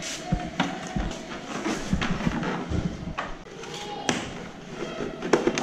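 Irregular clicks, taps and knocks of plastic fairing parts and tools being handled as the headlight, windshield and visor assembly of a Yamaha R15 V2 is taken apart.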